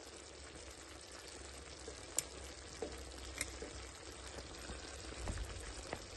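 Mutton and tomatoes frying faintly in a karahi, with a few light clicks of a metal utensil against the pan as the tomato skins are picked off.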